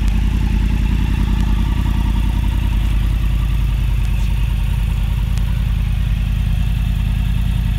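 2013 Yamaha R1's crossplane inline-four engine idling steadily through a GYTR exhaust, with a low, even exhaust note.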